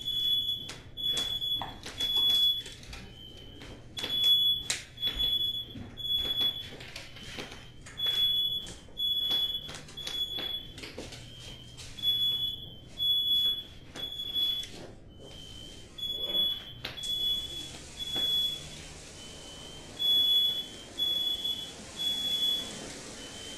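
Smoke alarms sounding in the three-beep fire-alarm pattern: groups of three high beeps with a short pause between groups, a second alarm at a slightly lower pitch overlapping. Sharp pops and crackles come between the beeps in the first part, and a steady high hiss sets in partway through.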